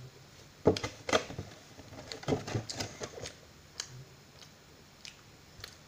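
Irregular clicks, taps and light crinkling of small objects being handled close to the microphone, with two louder knocks about a second in and a cluster of them near the middle.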